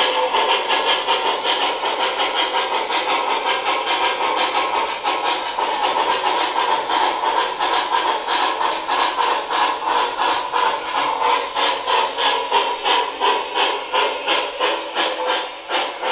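Model steam locomotive's onboard sound system playing steam chuffing with hiss, an even beat that quickens slightly as it goes, the sound of the locomotive under way.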